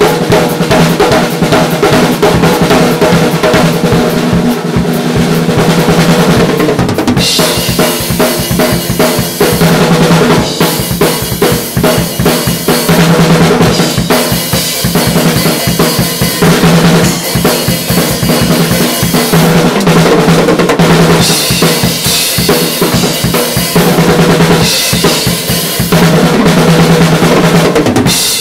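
Full drum kit played in a continuous groove, with kick drum, rimshots and fills on a Mapex Armory Exterminator snare, a deep 14x6.5 birch/walnut drum with its snares on and tuned down for a fat, poppy crack. The cymbals grow louder from about seven seconds in.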